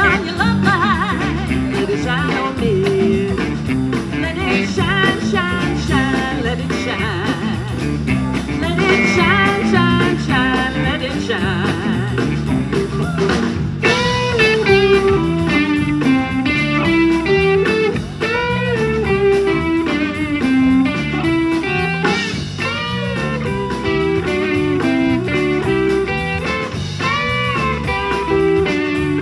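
Live blues-rock band playing: electric guitars and drum kit, with a woman singing lead.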